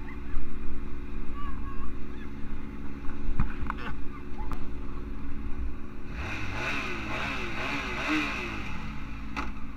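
Motorcycle engine idling steadily, then from about six seconds in revving up and down as the bike pulls away, with wind hiss on the microphone.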